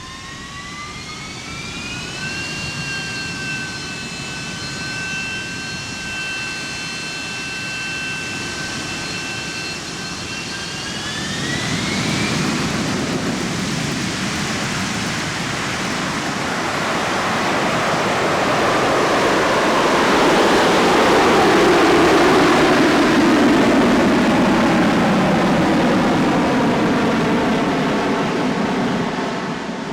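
Harrier jump jet's Pegasus turbofan spooling up for a vertical take-off. A high whine rises, holds steady, and climbs again about a third of the way through. A loud roar then builds to a peak two-thirds of the way in, with a tone sweeping down in pitch.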